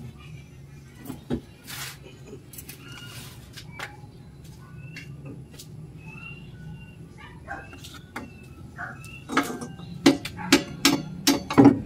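Metal knocks and clanks from a car's exhaust pipe being wrenched by hand at a stuck flanged joint, ending in a quick run of sharp knocks about three a second over the last few seconds.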